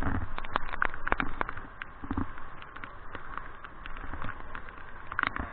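Irregular light clicks and taps close to the microphone, several a second, over a low steady river rumble.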